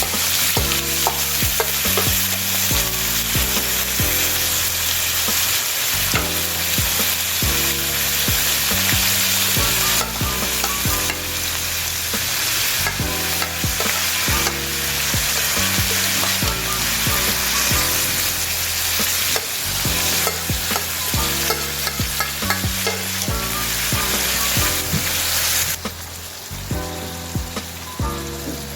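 Food frying in hot oil, a steady dense sizzle that quietens near the end.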